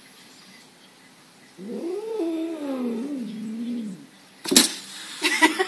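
A cat's angry, drawn-out yowl at a dog through a window, wavering up and down in pitch for about two seconds. About half a second later comes a sharp thump, then near the end a short burst of rattling clicks.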